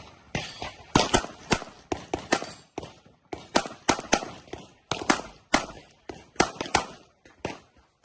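Handgun fired in rapid strings at a practical shooting match, about twenty shots with many coming in quick pairs, each with a short echo.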